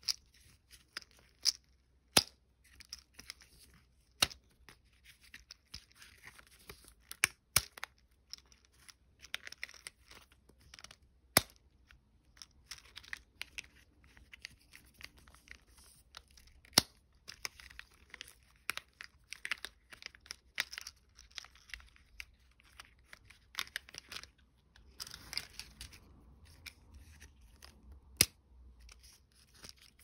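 Close-up handling of plastic monkey-shaped lollipop holders and their rubber balloons: irregular rustling and rubbing, with a sharp plastic click every few seconds.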